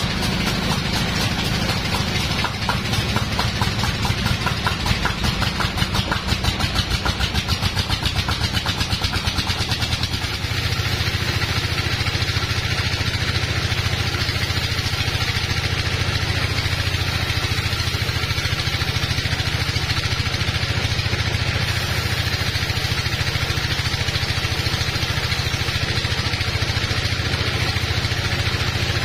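Band sawmill running as teak logs are fed through it: a loud machine sound that pulses rhythmically for about ten seconds, then switches abruptly to a steady low hum.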